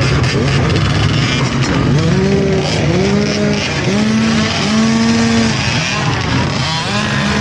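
Peewee dirt bike engines revving on a motocross track, the pitch repeatedly climbing and dropping about once a second as a rider works the throttle and shifts.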